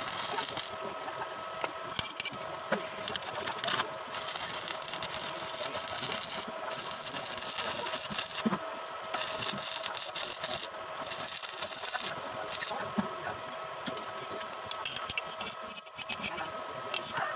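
An air-conditioner compressor, just freed from a jam, running steadily on the bench to work its lubrication in: a steady machine hum with a high hiss that comes and goes and a few sharp clicks.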